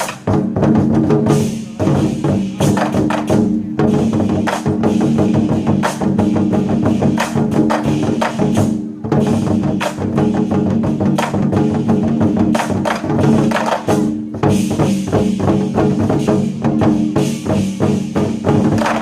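Chinese war drums (zhangu) beaten by a drum troupe in fast, dense strokes, played over loud recorded backing music with steady pitched tones.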